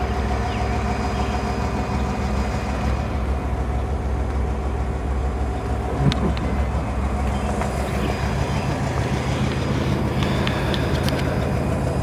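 A 312 Y-block V8 in a 1957 Ford Thunderbird idling steadily, a low even hum. There is a short knock about six seconds in.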